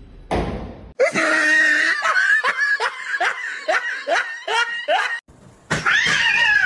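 A person laughing in high-pitched bursts that repeat about twice a second, lasting about four seconds. After a short break near the end, another high voice calls out with a sliding pitch.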